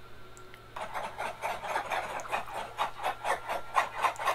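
A flock of chickens clucking: a dense, rapid chatter that starts about a second in and grows louder.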